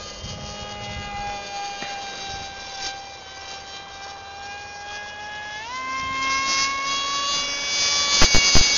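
Brushless outrunner motor spinning twin 7x4 wooden propellers on an electric RC speed wing, a steady high whine that jumps sharply higher about two-thirds through as the throttle is opened. Loud gusty rushing noise comes in near the end.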